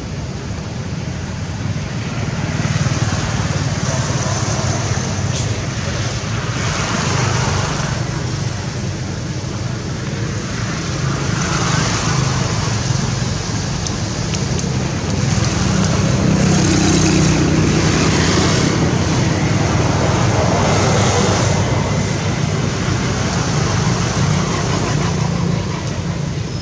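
Steady road traffic noise from passing vehicles, swelling louder about two-thirds of the way through.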